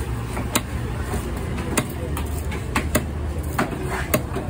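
A heavy cleaver chopping through fish onto a wooden log chopping block: about six sharp chops at uneven intervals, over a steady low hum of background noise.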